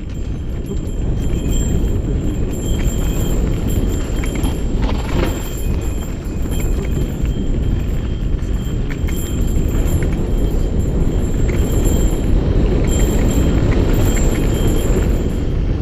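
Mountain bike riding fast over a loose, rocky dirt trail: a steady low rush of wind over the bike-mounted camera's microphone and tyres rolling on gravel, with scattered clicks and rattles of the bike over rocks. It builds up over the first second as the bike gathers speed.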